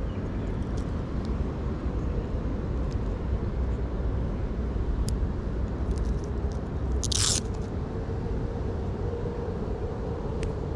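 Steady low rumble of outdoor background noise, with scattered clicks and rustles of clothing and hands moving against a chest-worn camera, and one louder crunchy scrape about seven seconds in.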